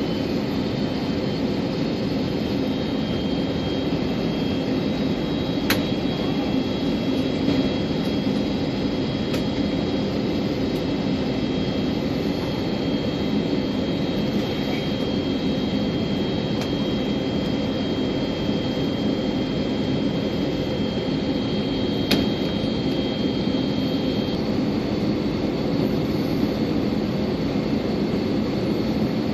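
Steady drone of a jet airliner in flight, heard inside the cabin, with a faint high steady tone that stops about 24 seconds in and a couple of brief clicks.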